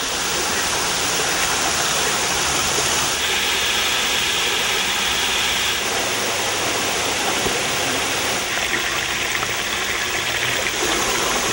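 Forest stream running over rocks: a steady rush of water that changes in tone a few times.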